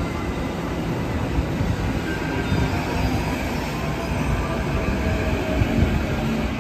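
Electric commuter train moving along a station platform: a steady rumble of wheels on rail, with faint thin whining tones over it.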